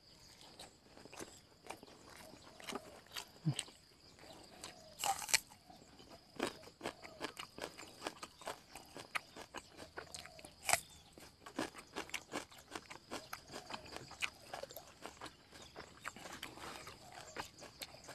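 Close-up chewing and crunching: a man eating rice with laab and biting raw vegetable stems, a string of small irregular clicks and crunches. The sharpest crunches come about five seconds in and again about eleven seconds in.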